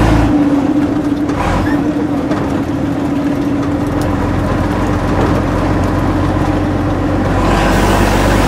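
Old bus's engine running, heard from inside the crowded passenger cabin: a steady drone with road noise and a constant hum.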